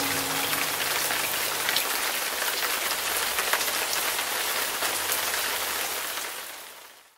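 Tabletop fountain's water trickling and splashing steadily, fading out near the end.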